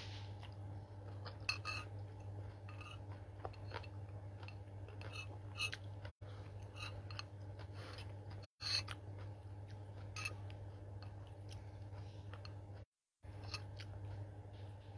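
Close-up eating sounds: a person chewing a mouthful of instant noodles, with many short, sharp wet mouth clicks and smacks scattered irregularly, over a steady low hum. The sound cuts out completely for an instant three times.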